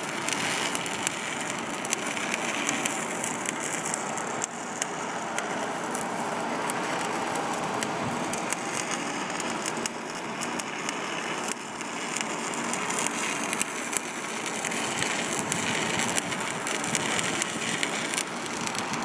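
Stick welding arc crackling and sizzling steadily, with many sharp pops.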